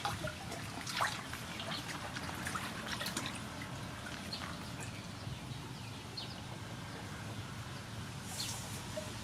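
Water dripping and trickling with scattered small clicks and taps from squid being prepared by hand, over a steady low background hum.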